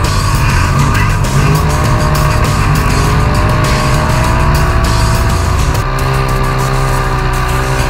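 Polaris RZR XP Turbo UTV engine revving up and down as it drives over sand dunes, with music laid over it.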